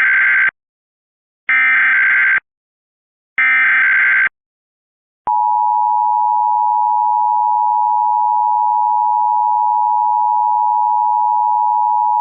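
Emergency Alert System SAME header: three one-second bursts of screeching data tones about a second apart (the first already under way), then the EAS two-tone attention signal (853 and 960 Hz together) starts about five seconds in and holds steady. This signals the start of an EAS broadcast, here a required monthly test, with the voice message to follow.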